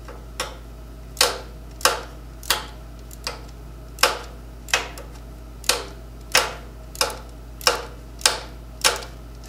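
Flex-head ratcheting wrench clicking in short, even strokes, about three clicks every two seconds, as the nut holding the timing chain tensioner is run down onto its stud.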